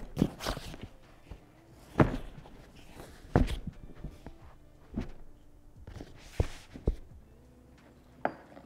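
Several separate thuds and taps, a second or so apart, from a Yeti Panga dry duffel bag being handled: its webbing straps and buckles are moved and laid against the stiff waterproof bag.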